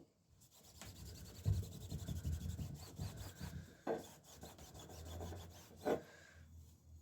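Cloth rubbing briskly over a bicycle part as it is wiped and polished clean, a fast scratchy rubbing, with two short knocks in the second half.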